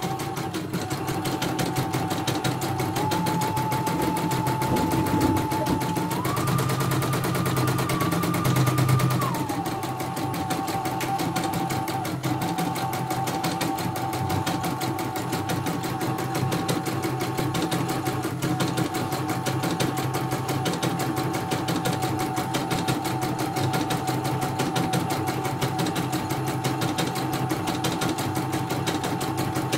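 CNY portable computerised embroidery machine stitching a design: a fast, even rattle of needle strokes over a steady motor whine. The whine steps up in pitch about three seconds in, goes higher and a little louder from about six to nine seconds, then drops back.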